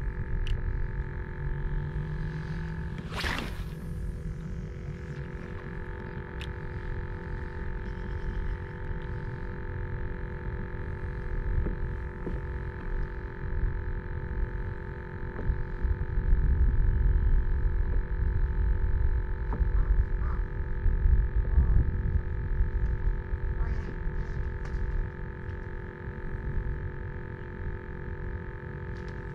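Gusty wind buffeting the microphone in uneven low rumbles that grow stronger about halfway through, over a faint steady hum. There is a brief whoosh about three seconds in.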